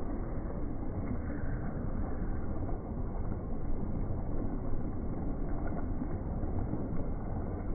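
Steady rushing of a fast-flowing stream over rocks, heaviest in the low end.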